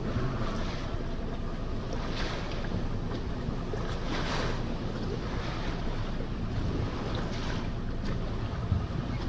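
Wind buffeting the microphone, with water lapping against a boat's hull in a few brief washes.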